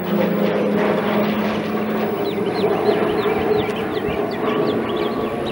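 Embraer A-29 Super Tucano's Pratt & Whitney PT6A turboprop passing overhead, a steady propeller drone with a held low hum. From about two seconds in, a run of short high chirps sounds over it.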